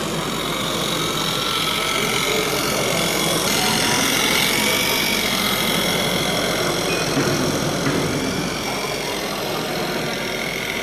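Radio-controlled scale Steiger Panther tractor driving across loose soil: a steady engine-like running sound with a thin, high whine that wavers a little in pitch.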